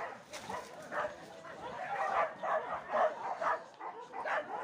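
Hunting dogs on a wild boar hunt, barking and yelping in quick repeated calls, about two a second.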